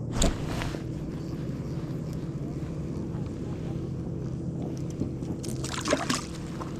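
An engine running steadily at an even speed, with a sharp knock just after the start and a brief rustle of handling noise near the end.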